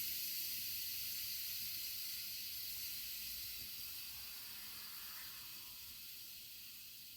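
Instant Pot pressure cooker venting steam through its release valve: a steady high hiss that fades gradually as the pressure inside runs down.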